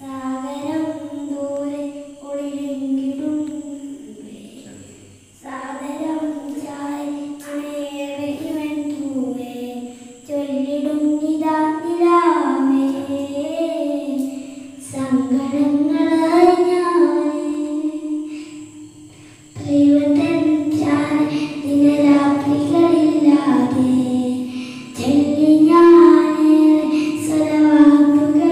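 A boy sings a song unaccompanied into a handheld microphone, amplified through a Montarbo portable PA speaker. He sings in long phrases of held, wavering notes with short pauses between them.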